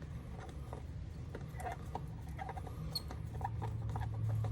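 Light, irregular clicks and scrapes of a hand tool and plastic intake parts being handled around a hose clamp, over a low steady rumble.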